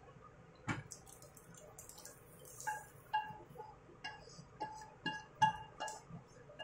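A spatula clinking and scraping against a metal pan, a dozen or so knocks, each ringing briefly. The loudest knocks fall about a second in, near the middle and near the end.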